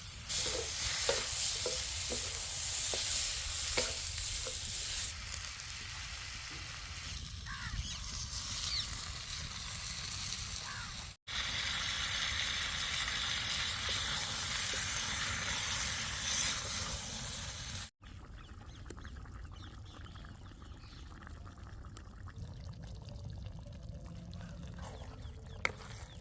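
Chicken curry sizzling as it fries in a pan over a wood fire, with a few clicks of stirring in the first seconds. The sound drops out for a moment twice, and the sizzle is quieter after the second break.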